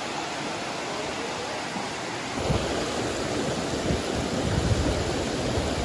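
Steady rush of water from a spring-fed stream. About two seconds in it becomes louder and fuller, with irregular low rumbling, as the water runs in white rapids.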